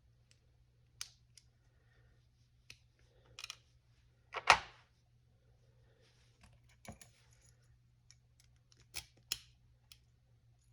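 Small metal clicks and clinks of a brass padlock and its key being handled, with one much louder clack about four and a half seconds in and two sharp clicks near the end.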